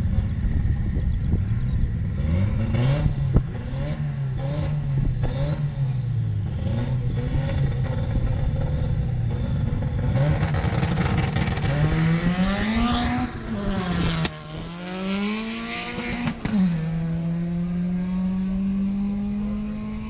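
Drag-racing car's engine blipped several times, then accelerating hard, its pitch climbing through the gears with two gear changes a few seconds apart.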